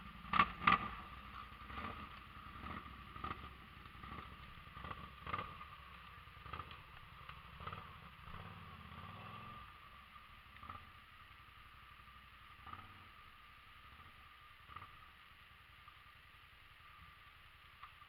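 Quad bike (ATV) engine running low with scattered sharp knocks and clatter; the engine hum dies away about halfway through, and fainter knocks continue after.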